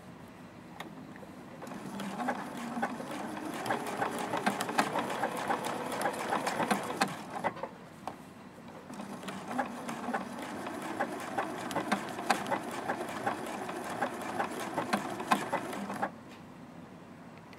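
Juki F600 computerised sewing machine sewing an appliqué stitch around a fabric edge, its needle mechanism running in a fast even rhythm. It sews in two runs, with a brief stop about halfway, and stops a second or so before the end.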